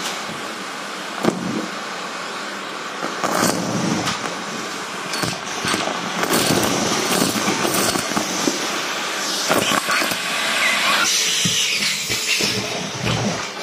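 Vacuum cleaner running, sucking up paper confetti, sequins, coins and paper clips from a rug through a metal wand, with a steady rush of air and frequent clicks and rattles as the hard bits strike and crackle through the metal tube.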